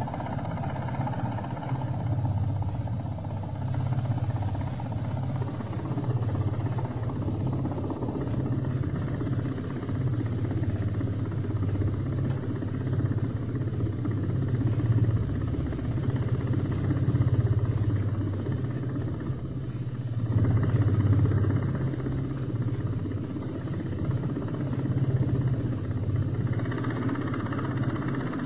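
Continuous low drone of a helicopter's engine and rotor, swelling and easing slightly in level.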